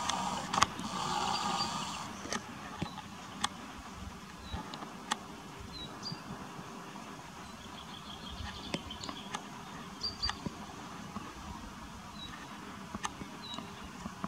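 Quiet mountain outdoor ambience with scattered sharp clicks and a few short, faint high chirps; a brief rustling noise comes in the first two seconds.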